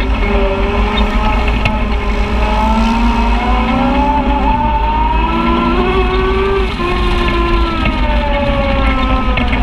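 Side-by-side UTV engine running under way on a dirt trail, its pitch rising as it speeds up, dropping briefly about seven seconds in, then falling as it eases off, over a steady low rumble.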